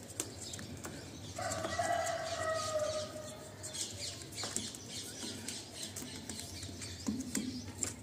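A rooster crows once, a drawn-out call of about two seconds that starts a little over a second in and drops slightly at its end. Around it are faint scattered clicks and rustles of hand work.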